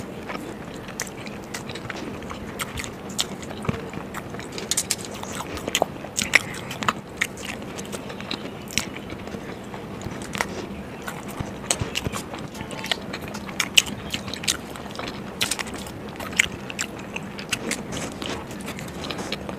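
A person biting into and chewing whole boiled eggs coated in masala spice: soft, wet chewing broken by many short, sharp mouth clicks that come irregularly.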